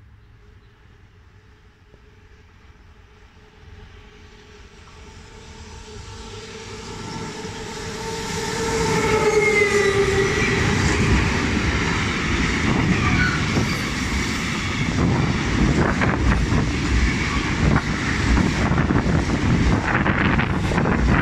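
Freight train approaching and passing close by: a rumble that builds over several seconds, a humming tone from the locomotive that drops in pitch as it goes past about nine seconds in, then a steady rumble and rapid clatter of wagon wheels on the rails as car-carrier and tank wagons roll by.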